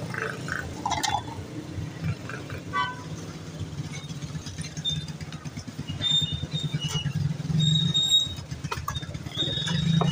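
A small vehicle engine running steadily at idle, with scattered light clinks of a spoon against bowls and brief high pings.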